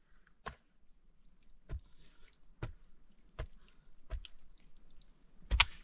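Mattock blade chopping into hard, dry, stony soil in repeated digging strokes, about six blows roughly a second apart, the last one the loudest.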